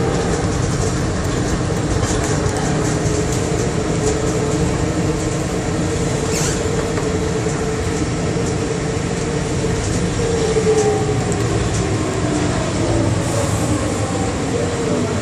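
Bombardier Innovia APM 100 rubber-tyred people mover running along its guideway, with a steady rumble and a motor whine that falls in pitch during the last few seconds.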